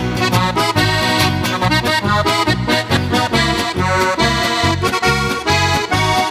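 Instrumental break of a Slovenian folk ensemble tune: a button accordion plays the melody over a regular, pulsing bass accompaniment, with no singing.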